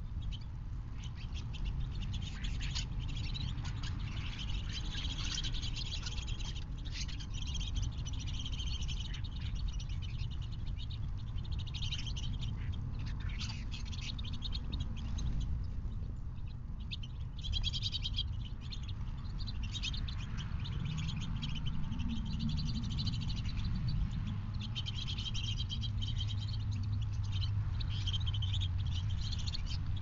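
A flock of small songbirds chirping and twittering, many short calls overlapping, over a steady low rumble.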